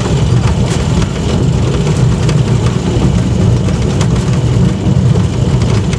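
Engine and running gear of a rail-converted Land Rover on 2 ft gauge track, heard from inside the cab: a loud, steady low rumble as it drives along, with a few faint clicks.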